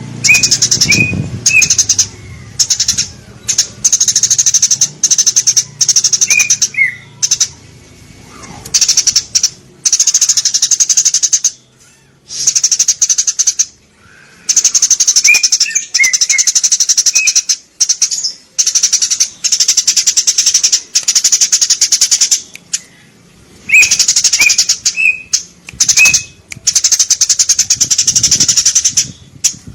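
Eurasian tree sparrows chirping in rapid chattering bursts of a second or two, repeated again and again with short gaps, and a few lower single chirps between them.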